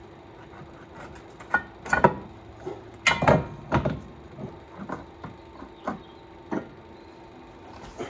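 Irregular clanks and knocks of hand tools on metal while a car's drive axle is being removed, a cluster of sharp strikes in the first half and lighter taps after.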